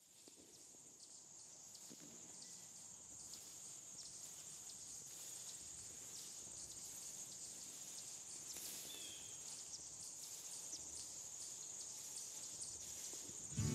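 Outdoor insect chorus: a steady, high-pitched pulsing trill of crickets fading in gradually, with one brief chirp about two-thirds of the way in.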